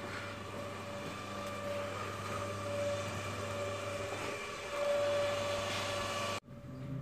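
A steady machine hum with a few constant tones in it. It grows louder about five seconds in, then cuts off suddenly near the end.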